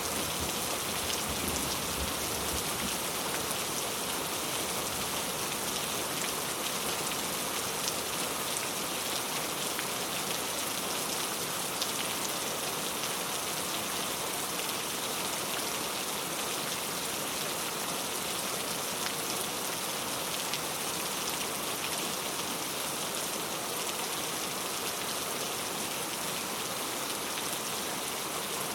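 Steady rain falling: a dense, even patter of drops with no let-up.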